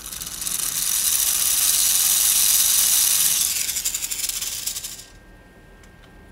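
LEGO Technic plastic gear train driven by a LEGO Power Functions electric motor, whirring with a rattle as it spins up a LEGO spinner. The sound builds over about two seconds, holds, then dies away about five seconds in, leaving a faint steady whine.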